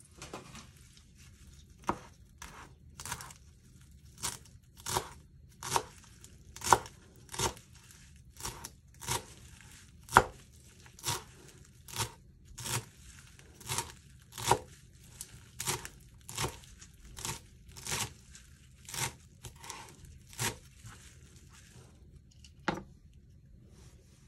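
Knife chopping food on a cutting board in a steady run of sharp strokes, roughly one and a half a second, stopping shortly before the end.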